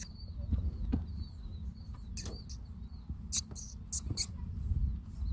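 Outdoor wind buffeting the microphone as an uneven low rumble, with faint high bird chirps and a few scattered clicks and rustles.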